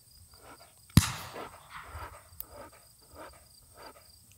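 A single sharp bang about a second in, fading out over about a second, followed by faint scattered sounds.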